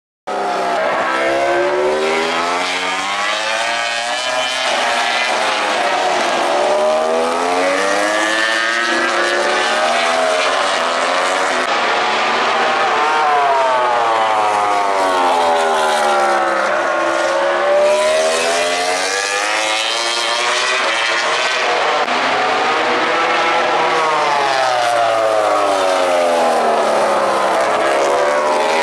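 MotoGP racing motorcycles' four-cylinder engines at high revs, one after another braking into a slow corner and accelerating out of it. The revs drop through the downshifts, then climb hard again on the way out, over and over every few seconds.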